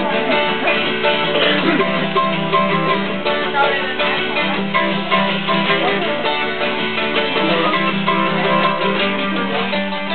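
Mandolin and acoustic guitar playing a bluegrass-style mountain tune together.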